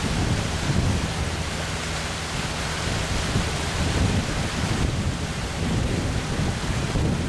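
Wind buffeting the microphone: a steady rushing hiss with uneven, gusty low rumbling.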